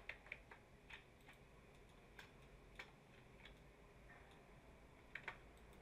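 Near silence with scattered faint clicks of a computer mouse and keyboard, about a dozen at irregular intervals, with a quick pair near the end.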